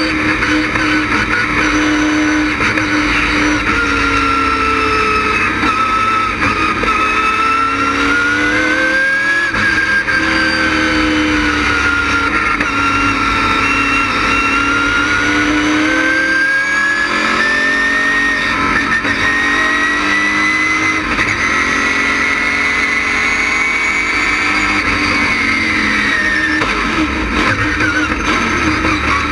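GM LS6 V8 of an ASA-style stock car running hard at speed, its pitch rising and falling slowly with the revs, and dropping near the end.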